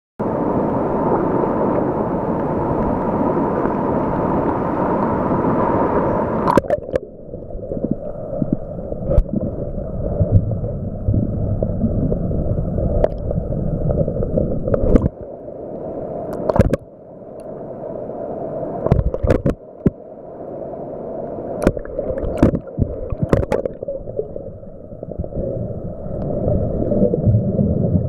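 Muffled water sloshing and gurgling, heard through an underwater camera housing moving in and under the sea, with scattered sharp clicks or knocks. About six seconds in the sound turns duller.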